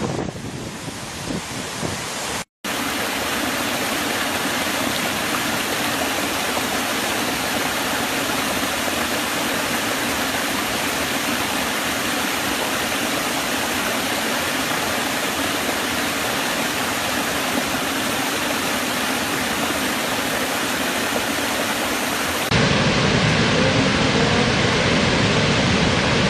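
Waterfall water rushing steadily. It breaks off for an instant about two and a half seconds in, and near the end it turns louder and deeper.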